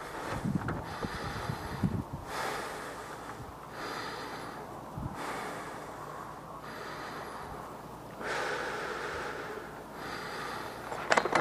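Heavy breathing close to the microphone: slow, noisy in-and-out breaths, each lasting about a second and a half.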